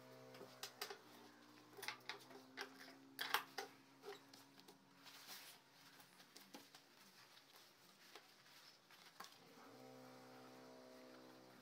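Quiet handling of denim pieces at an industrial sewing machine: soft cloth rustles and small clicks, the loudest about two and three seconds in. Under them runs a faint steady hum that dies away after a few seconds and comes back near the end.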